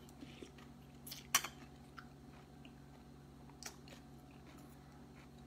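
A person chewing a mouthful of soup and dried fish, with a few sharp clicks and crunches: the loudest about a second and a half in, another near four seconds.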